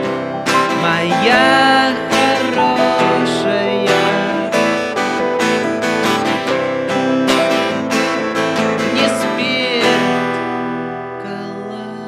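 Band music with strummed guitars. The music thins out and gets a little quieter near the end.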